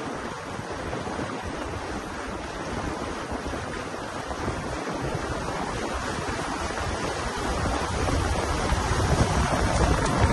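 Water rushing along the hull of a small aluminium boat under way, with wind on the microphone; it grows louder about eight seconds in as the boat picks up speed. No engine is heard, as the boat is driven by an electric outboard.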